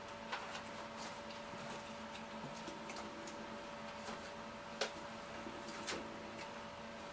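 Scattered light clicks and taps of hands and kitchen utensils at work on food, with two sharper clicks about five and six seconds in, over a steady low electrical hum.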